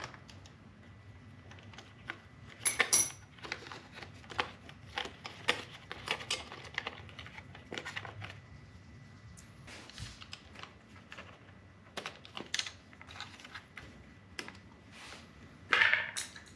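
Irregular small clicks, taps and rattles of hands handling hardware and cabling in the frame under a motorcycle seat, with a louder clatter about three seconds in and another near the end.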